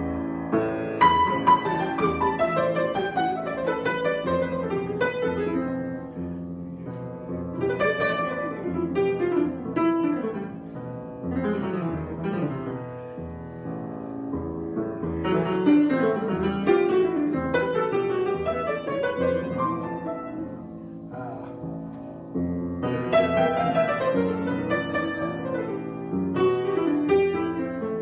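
Solo grand piano being improvised, with runs of quick notes over held bass, in phrases that swell louder and ease off several times.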